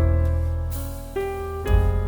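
Background music led by piano or electric piano over a steady bass, with notes changing about every half second.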